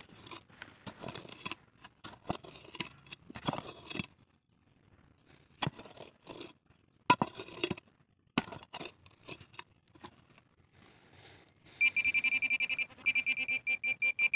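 A pick chopping and scraping into stony soil, a series of separate strikes. About twelve seconds in, a metal-detecting pinpointer pushed into the hole sets off a loud, rapid, high-pitched pulsing beep, its signal that there is metal in the soil.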